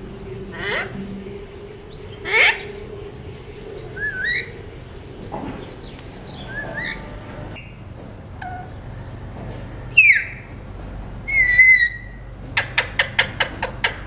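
Alexandrine parakeets calling: harsh squawks and whistled notes with bending pitch. The loudest is a falling squawk about ten seconds in. A warbling whistle follows, then a fast run of sharp, clipped calls near the end, about five a second.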